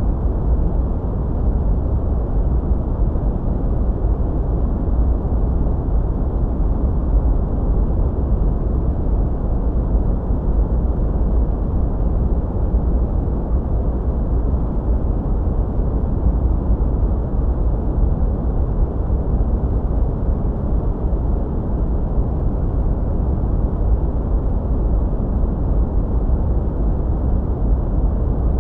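Steady, unbroken sleep noise, a deep hiss-rumble heavy in the bass with almost nothing in the treble, constant in level throughout.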